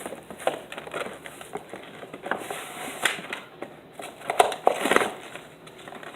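Amiibo packaging being opened by hand: the cardboard box and plastic blister crinkle, scrape and click in irregular bursts, with a louder rustle about three seconds in and another about five seconds in.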